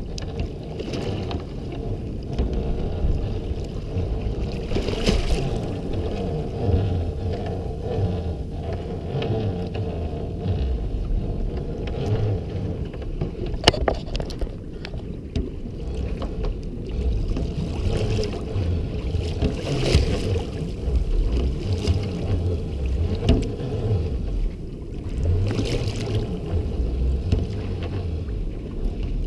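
Small boat's outboard motor running in gear at trolling speed, a steady low rumble, with wind gusting on the microphone now and then.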